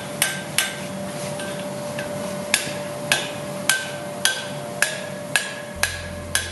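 Hand hammer striking a hot chain link on an anvil during hand chainmaking: sharp ringing blows nearly two a second, with a pause of a second or two after the first few.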